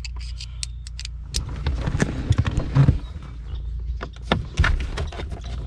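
Scattered clicks and light knocks of a screwdriver working on a T15 Torx screw in the plastic interior trim of a car's center console, over a steady low hum.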